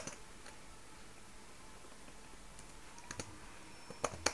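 Computer keyboard keystrokes typed in short runs with pauses between: a few clicks at the start, a gap, then a handful more about three seconds in and near the end.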